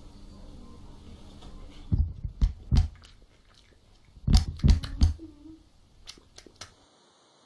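Several sharp knocks and thumps close to the microphone, in two bursts of three or four about two seconds apart, followed by a few fainter clicks.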